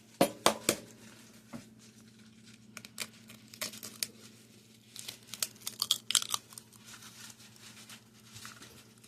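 Eggs being cracked into a ceramic egg cooker: a few sharp knocks in the first second, then scattered crackling of shell as the eggs are broken open.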